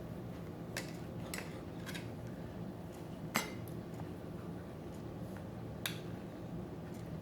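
Knife and fork clinking and scraping against a dinner plate while a steak is cut: a few light scrapes in the first couple of seconds, a sharp clink about halfway through, and another near the end.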